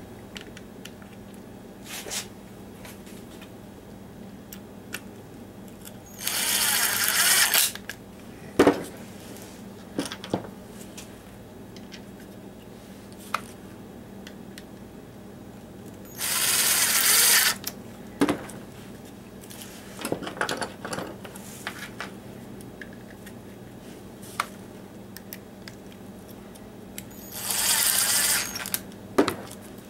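Cordless driver running in three short bursts of about a second and a half each, driving small drywall screws into plywood, with clicks and knocks of handling between the bursts.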